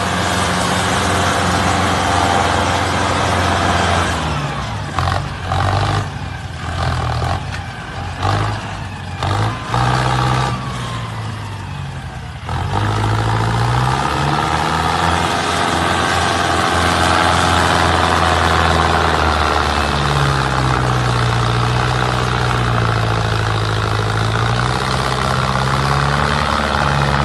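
Diesel tractor engine working hard to haul a loaded trolley: revved and eased off in a series of short bursts for several seconds, then held at high revs with the pitch rising and falling.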